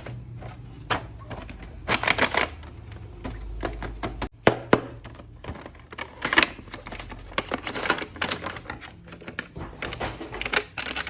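Hands unpacking and handling a plastic action figure and its packaging: irregular sharp clicks, taps and crinkly rustles.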